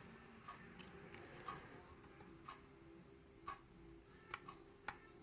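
Faint, sharp clicks of a hook pick and tension wrench working the pins of a Wilka euro cylinder challenge lock. A steady tick about once a second runs underneath.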